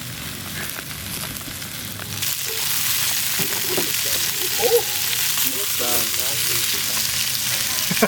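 Sous vide steak searing in hot oil in a pan, a steady hissing sizzle that gets louder about two seconds in.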